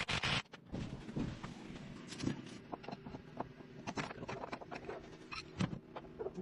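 Irregular clicks and knocks, opening with a short burst of noise, over a faint steady hum.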